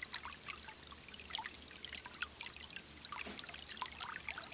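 Water trickling and splashing in a small garden water feature, a quiet stream of little bubbling plinks and drips.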